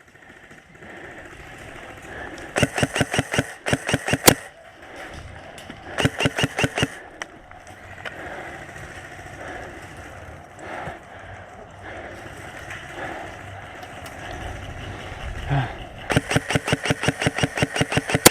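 Airsoft electric gun firing full-auto, three rapid bursts of sharp clicking shots: the first lasts nearly two seconds, the second about a second, and the longest runs about two seconds near the end.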